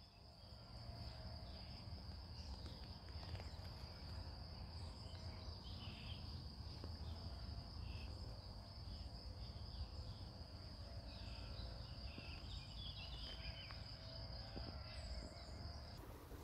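Crickets singing in one steady, unbroken high trill, with a few short higher calls scattered over it and a low rumble underneath.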